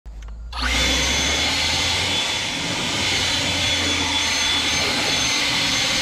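Cordless electric leaf blower switched on about half a second in and running steadily: a rush of air with a thin high motor whine.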